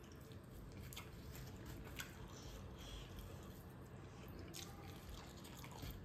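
Faint close-up eating sounds: chewing a mouthful of rice, with fingers gathering rice off a banana leaf and a few scattered soft clicks.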